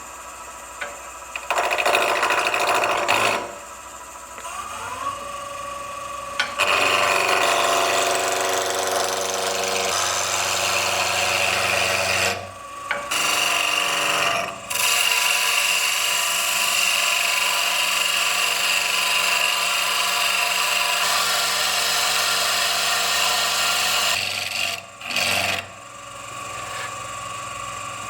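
Wood lathe running while a tool cuts or scrapes a spinning birch handle blank, in long stretches of several seconds with a few short breaks. A rising tone about five seconds in.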